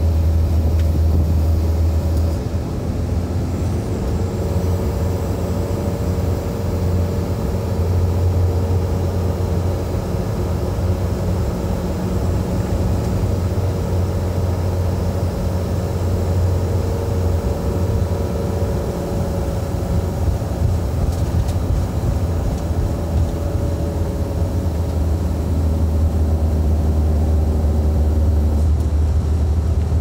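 Engine and road noise of a moving vehicle heard from inside, a steady low drone with a faint engine hum that drifts slowly in pitch.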